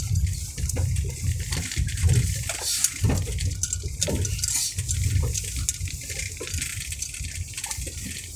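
Cabin noise of a Chevrolet Tavera driving over a rough, broken road: a low, uneven rumble from the tyres and suspension with scattered bumps and knocks from underneath, the sharpest about two seconds in.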